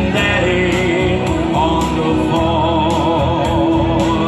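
Live ballad music: a man singing into a microphone over backing music with a country feel. A long note with vibrato is held through the middle.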